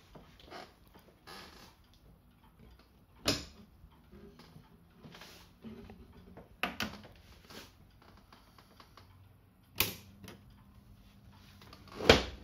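Four sharp clicks or knocks about three seconds apart against quiet room tone, the last the loudest, near the end.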